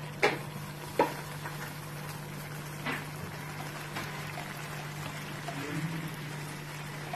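Tomato thokku simmering in a nonstick pan with a light bubbling sizzle while a wooden spatula stirs it; the spatula knocks sharply against the pan twice near the start, with a couple of lighter taps later.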